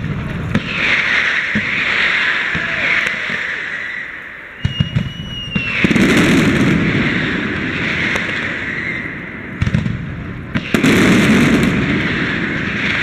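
Aerial fireworks display: shells bursting in quick clusters of sharp bangs twice, each followed by long, loud crackling and rumbling from the bursts, with a brief whistle about five seconds in.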